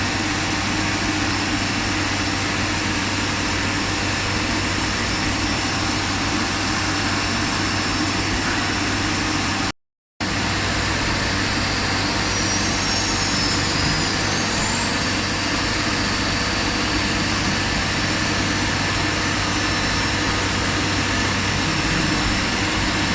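STD-1325 ATC CNC router running: a steady machine noise with a low hum underneath. It cuts out briefly about ten seconds in, and a few faint high rising whines follow a few seconds later.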